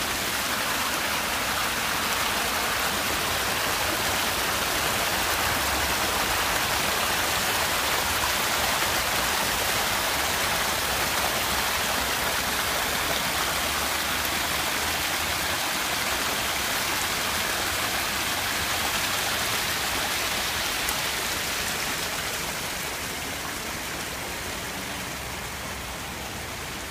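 Sewage-laden water rushing and splashing into a stream over debris, a steady rush of running water that grows fainter over the last few seconds.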